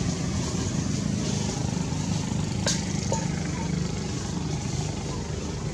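A steady low engine rumble, as of a motor running nearby, with a single sharp click about two and a half seconds in.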